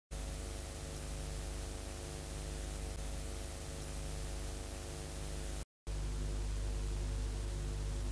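Steady static-like hiss over a low buzzing hum, cutting out for a moment about six seconds in and coming back with a stronger hum.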